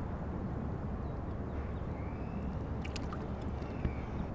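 Steady low outdoor rumble with light splashing and dripping of shallow water as a bonefish is handled in a landing net, with a couple of faint ticks about three seconds in.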